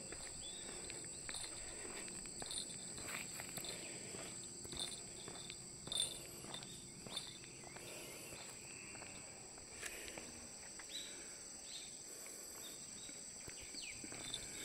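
Faint, steady high-pitched insect chorus, with scattered light footsteps and knocks and a few brief bird chirps.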